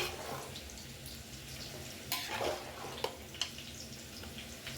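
Rice, soaked chana dal and meat being stir-fried in a cooking pot: a spoon scrapes and knocks against the pot, with a few sharp knocks a couple of seconds in.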